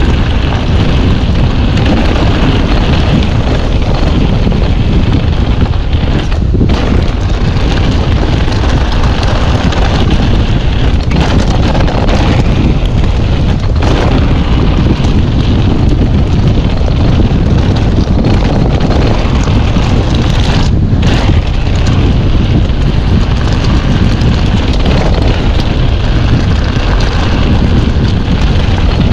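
Strong wind buffeting the microphone, a loud, steady rumble with no break.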